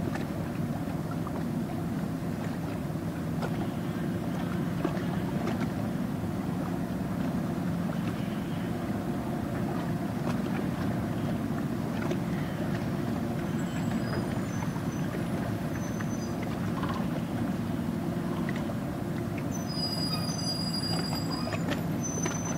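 Steady low drone of a vessel's engine running on the water, with a few thin high chirps near the end.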